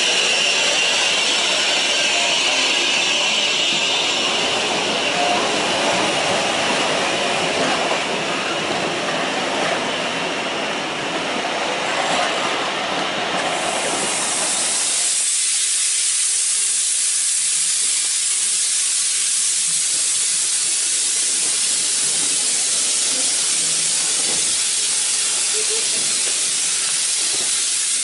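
Steam train running, a broad noisy rumble, which gives way abruptly about halfway through to a loud, steady high hiss of escaping steam from the locomotive.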